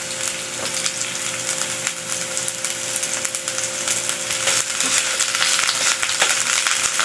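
Sliced red onions sizzling and crackling in hot oil in a nonstick frying pan as they are sautéed, a steady dense crackle. Near the end a utensil stirs them and the frying grows a little louder.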